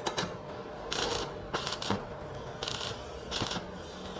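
About five short, scratchy handling noises, roughly a second apart.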